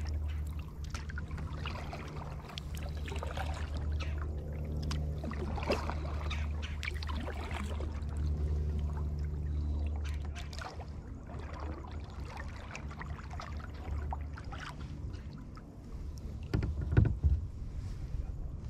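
Kayak being paddled on a lake: the paddle dipping and water splashing and lapping against the hull, over a steady low rumble. A louder bout of splashing comes near the end.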